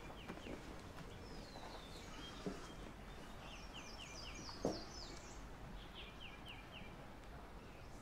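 Faint birdsong over quiet ambience: short phrases of three or four quick chirps, repeated several times. Two soft thuds fall in the middle.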